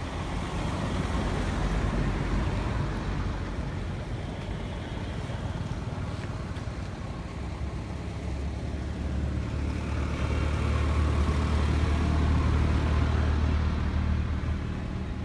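Motor vehicles passing: a low engine sound swells about two seconds in, dips, then grows to its loudest between about ten and fourteen seconds before fading near the end.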